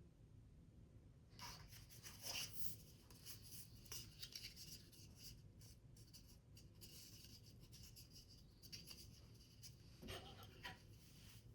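Faint scratching and rustling of paper being worked by hand, a run of small scrapes and ticks starting about a second and a half in.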